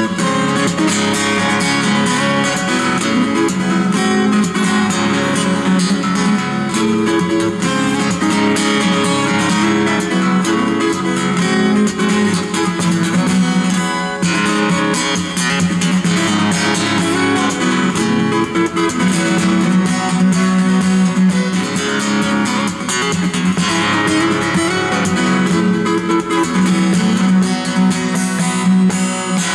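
Solo steel-string acoustic guitar played fingerstyle, picked melody and bass notes mixed with percussive taps on the guitar body, continuous throughout.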